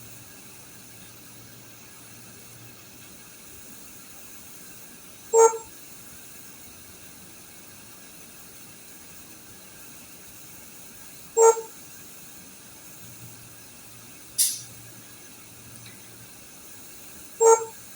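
A short electronic beep repeating at even six-second intervals, three times, over a steady low hiss, with a brief sharp click about fourteen seconds in.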